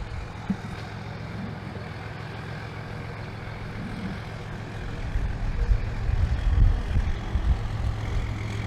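Truck engine running with a low rumble that grows louder from about halfway through, as the truck pulls up.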